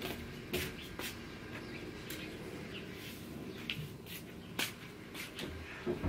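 Scattered knocks and rattles of a child's bicycle and a kick scooter being lifted, carried and set down on a tiled patio, with a few sharp clanks.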